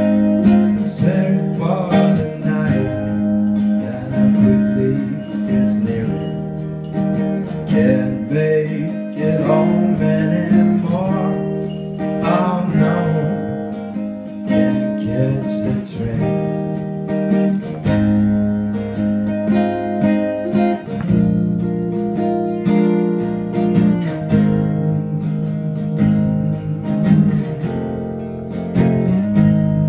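Guitar playing an instrumental passage of a slow song, strummed and picked chords ringing on, with a few sliding or bent notes in the middle.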